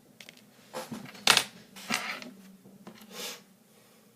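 Four short noisy bursts of small-object handling on a work surface, the loudest about a second and a half in, over a faint steady hum.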